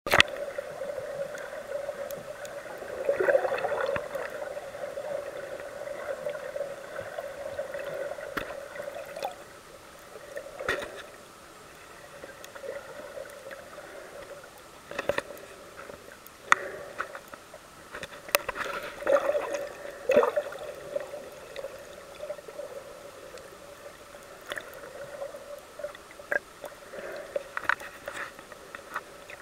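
Underwater ambience as picked up by a camera submerged in the sea: a muffled steady hum with scattered sharp clicks, swelling twice with water movement, about three seconds in and again near the twenty-second mark.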